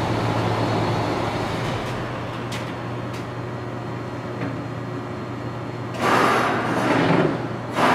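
Poreba heavy-duty engine lathe running under power at a lower spindle speed, with a steady motor hum that eases slightly about two seconds in. About six seconds in, a louder rushing noise comes in for nearly two seconds.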